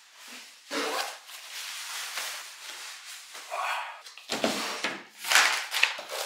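Books and papers handled on a table: rustling and rubbing, with a few soft knocks of a book being picked up and set down.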